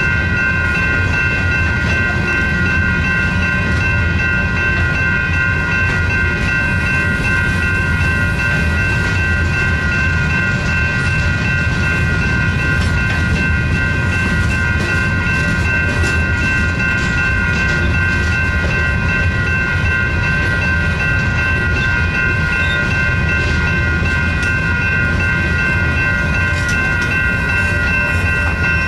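Several railroad crossing bells of mixed types (General Signals Type 3, NEG and Western Cullen Hayes) ringing together, steady and unbroken. Under them is the low, even rumble of a freight train's covered hopper cars rolling through the crossing, with scattered wheel clicks.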